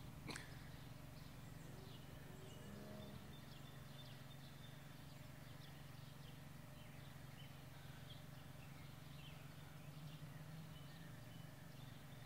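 Quiet outdoor ambience: faint, scattered bird chirps over a steady low hum.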